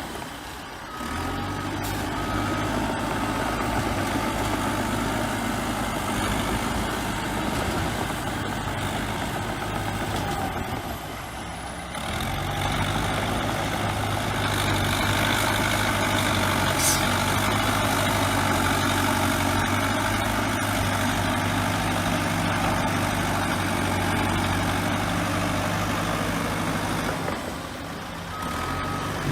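Bulldozer diesel engine running steadily under working load. A reversing alarm gives short beeps near the start and again near the end.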